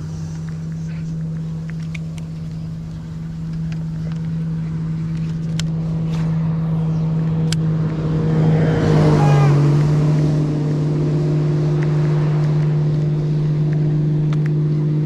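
Outboard motor of a boat running past at speed. It grows steadily louder, peaks with a rush about nine seconds in as it passes, drops slightly in pitch, then keeps running loud.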